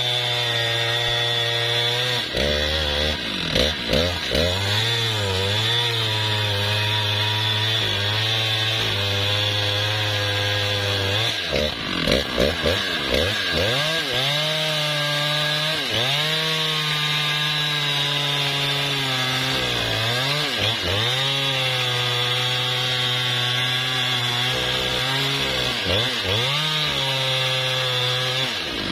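Husqvarna 395XP two-stroke chainsaw running hard as it cuts into a teak trunk near the ground. Its engine pitch sags and recovers again and again as the chain loads up in the wood, with bursts of quick dips a few seconds in and again about halfway.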